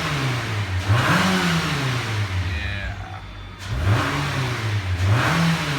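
Nissan Altima engine being revved, its pitch rising and falling four times, running smoothly now that the rodent-chewed wiring behind its cylinder 4 misfire has been repaired: the misfire is gone.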